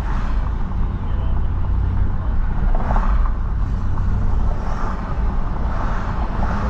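Steady low rumble of road and engine noise inside the cabin of a car driving along a city street.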